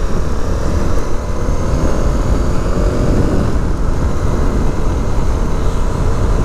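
Honda CRF300 motorcycle's single-cylinder engine running while riding along, mixed with heavy low wind rumble on the bike-mounted microphone. The engine note is clearest in the first three seconds.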